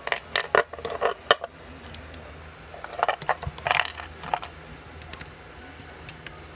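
Light clicks and clatter of a key with a plastic tag and small lock parts being set down and moved on a wooden pinning tray. The clicks come in two bunches about three seconds apart.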